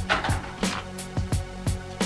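Background music with a steady electronic beat: kick drum, hi-hats and sustained synth bass.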